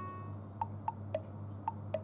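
Sparse background music: a held chime-like note fades away, then five short ticking notes alternate between two pitches, tick-tock fashion, over a steady low hum.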